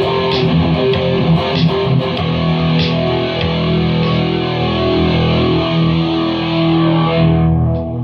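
Electric guitar played through distortion and effects, improvised: strummed chords for the first few seconds, then a held chord whose high fizz fades away near the end.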